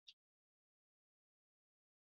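Near silence: digital silence after the faint tail of a spoken word at the very start.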